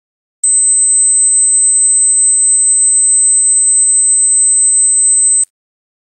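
A single steady, very high-pitched pure tone, played as a dog whistle sound, lasting about five seconds and starting and stopping abruptly with a click at each end.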